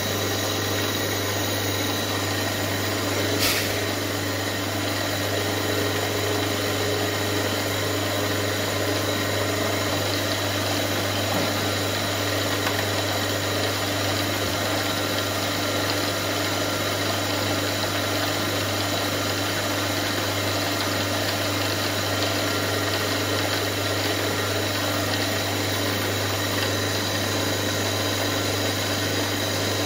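Small milling machine's spindle motor running steadily while a small drill bit is fed down into a brass workpiece to drill a shaft hole. A single sharp click about three and a half seconds in.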